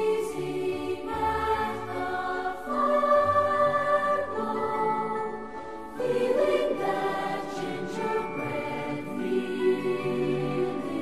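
Background music: a choir singing slow, sustained chords, the harmony shifting every second or so.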